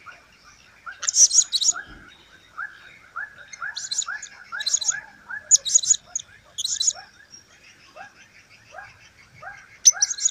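Blue-crowned hanging parrot (serindit) calling: clusters of sharp, very high-pitched chirps repeated every second or so, over a quieter run of short, lower falling notes about twice a second.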